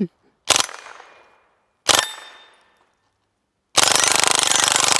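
Suppressed .22 LR AM-15 firing full auto from the open bolt: two short bursts about a second and a half apart, then near the end one long continuous burst, the rounds coming too fast to tell apart.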